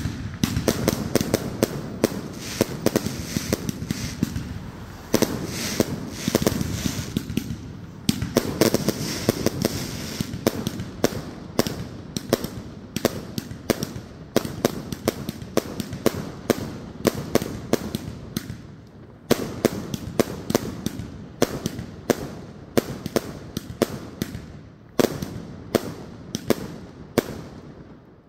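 Fireworks going off in a rapid, continuous barrage of sharp bangs, several a second, with crackling between them and a couple of brief lulls.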